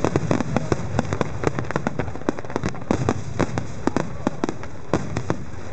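Fireworks bursting in quick succession: a dense run of sharp bangs and crackles, several a second, over a low rumble.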